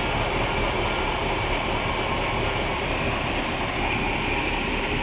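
Chevy C20 pickup's 350 cubic-inch V8 with a Rochester Quadrajet carburetor idling steadily, running strong, heard up close with the hood open.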